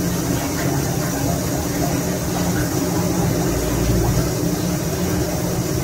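Elevator machinery running with a steady low hum and rumble, and a heavier low rumble about halfway through.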